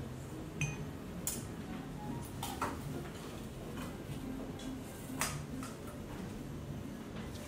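A few light clinks and knocks of crockery and kitchenware being handled and set down on the counter, spaced irregularly over a steady low hum.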